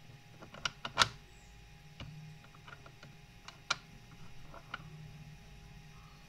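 Hard plastic puzzle blocks clicking and knocking against each other and the plastic base as they are fitted and lifted off: a handful of sharp clicks, the loudest about a second in.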